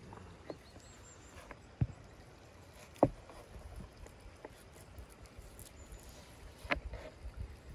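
Raw lamb rib pieces being handled and pushed onto a flat steel skewer over a wooden cutting board: small scratchy handling sounds with a few sharp knocks, the loudest about three seconds in.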